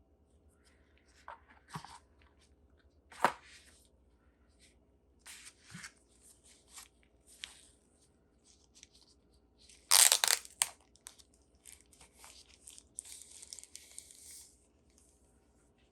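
Phone packaging being torn open and handled: short rustles, taps and clicks, one loud tear about ten seconds in, then a few seconds of crinkling near the end.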